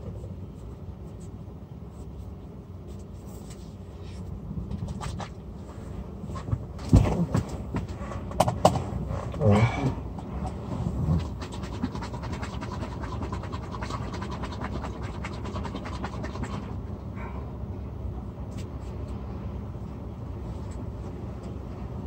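Steady low hum of a truck cab, with knocks, scrapes and a few short vocal sounds in the middle as a spilling paper coffee cup of shaken drink is handled.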